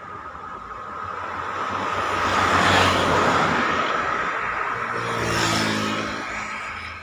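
Road vehicles passing close by. The first passes about three seconds in with mostly tyre and road noise. A second passes about five and a half seconds in, its engine note dropping in pitch as it goes by.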